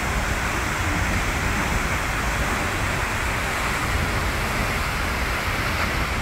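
Seljalandsfoss waterfall heard up close: a steady rushing noise of water falling into its plunge pool, with a deep rumble underneath.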